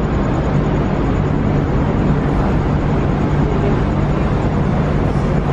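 MSC Armonia cruise ship's thrusters and machinery running as the ship pushes off the pier: a steady low hum under a constant rushing wash.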